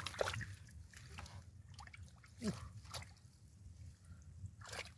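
Small splashes, drips and sloshes of muddy shallow water as hands grope through the mud and fish wriggle in it, coming as scattered short sounds.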